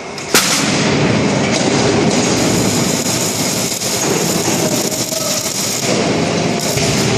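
Steady loud mechanical rumble with clattering in a metal-fabrication workshop, set off by a sharp knock shortly after the start.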